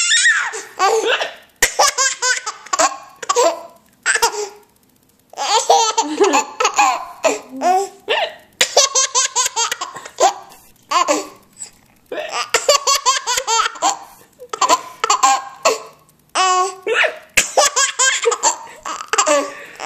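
A baby laughing in repeated fits of belly laughs, each bout a quick run of pulses, set off by a woman's hiccups, which break in now and then as short sharp gulps between the bouts.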